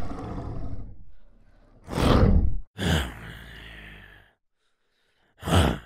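Monster growls and roars made from a man's voice processed in real time by the Dehumaniser voice-to-monster software. Four rough, rumbling bursts: one at the start, one about two seconds in, a longer one about three seconds in, and a short one near the end.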